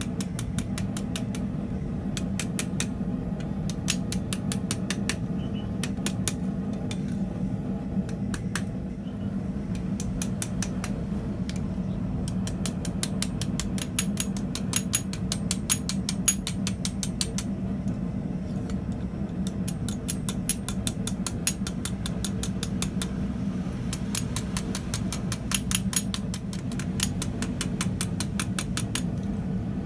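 Steady machine hum of the smithy with runs of rapid light metallic clicking and a few sharper metal knocks, as a hot split bar is twisted in a leg vise with a twisting wrench.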